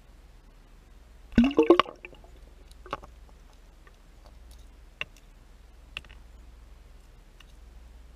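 Heard underwater: a short splash with a bubbly gurgle rising in pitch about a second and a half in as the Carolina-rigged plastic worm plunges into the pool, followed by a few faint single clicks.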